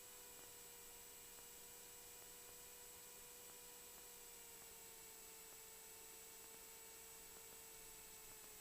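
Near silence: a faint hum with a few steady tones that slowly drop in pitch, over a light hiss.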